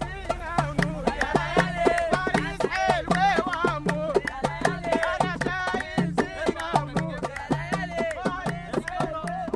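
Egyptian street music: voices singing a wavering, ornamented melody over a quick beat of Egyptian tabla (darbuka) and tambourine strikes.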